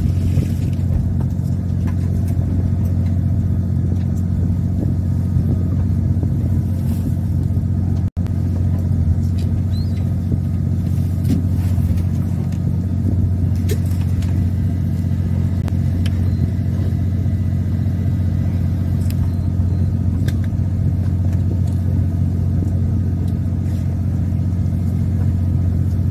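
Steady low drone of the fishing boat's engine running, with a few light clicks from tackle being handled on deck. The sound cuts out for an instant about eight seconds in.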